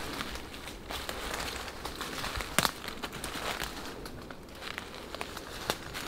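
Footsteps crunching through dry leaf litter and brush on a forest floor, uneven crackling with small twig snaps and one sharper snap about two and a half seconds in.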